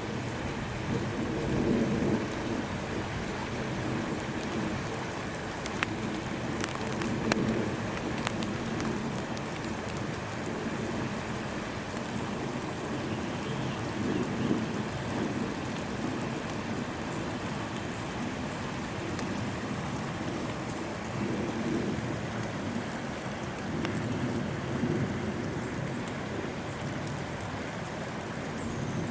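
Steady hiss of wet snow falling, with low rumbling swells every few seconds and a few faint clicks.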